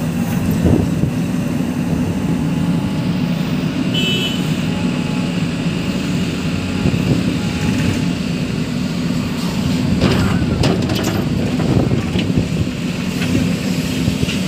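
JCB 3DX backhoe loader's diesel engine running steadily while the backhoe arm works, with a short cluster of knocks and clatters about ten seconds in.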